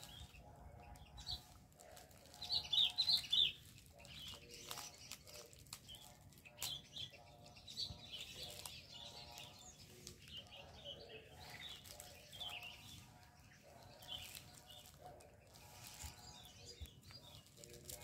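Small birds chirping in quick runs of short high notes, the loudest a run of four about two and a half seconds in, with more scattered chirps after.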